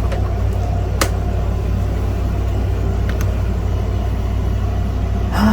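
A single sharp click about a second in, a Commodore 128 being switched on, with a couple of fainter ticks, over a steady low hum.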